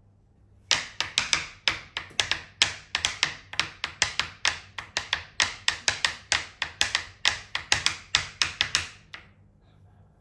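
A rapid run of sharp taps, about three or four a second in an uneven rhythm, starting just under a second in and stopping about nine seconds in.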